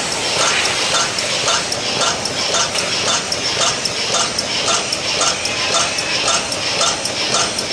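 Win 610 stand-up pouch making machine running at 114 cycles a minute with a 200 mm film draw: a regular mechanical clacking of its strokes, about two a second, over a steady machine noise.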